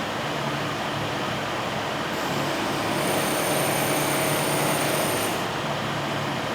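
Automated machining cell running with a steady mechanical hum and hiss; from about two seconds in, a high-pitched whine of several steady tones joins it, then stops about five and a half seconds in.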